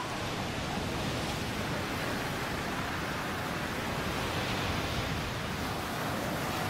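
Sea surf breaking and washing over a rocky shore, a steady rush of foaming water.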